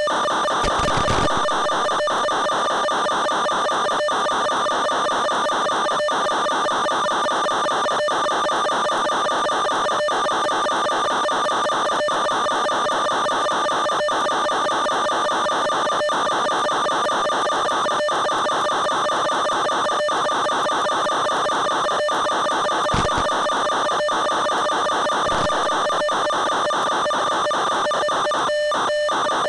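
A steady whining drone with several fixed pitches stacked together, unchanging in pitch or level, carried on the FPV aircraft's onboard audio. Two brief low bumps break in, one about a second in and one near the end.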